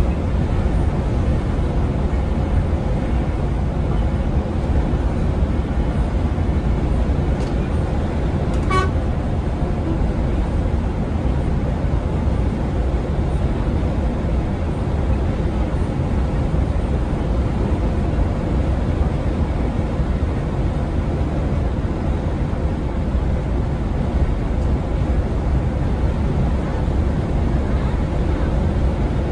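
Steady engine and road drone inside a Mercedes-Benz Travego coach cruising at motorway speed, heard from the driver's position. A short beep sounds once about nine seconds in.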